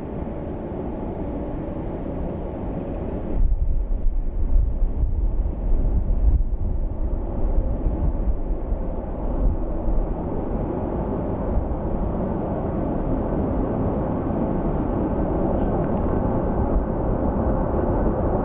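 Airliner's jet engines rumbling steadily on approach, mixed with wind buffeting the microphone in gusts, strongest a few seconds in.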